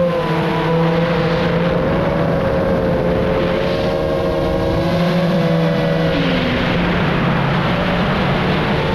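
FPV quadcopter motors and propellers whining, the pitch shifting with the throttle and dipping about six seconds in, over a steady rushing hiss of wind.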